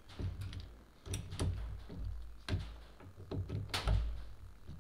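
Small irregular clicks and ticks of a screwdriver bit turning in the screws of a scope ring base as they are snugged up with light tension, with faint handling knocks; one louder click and knock near the end.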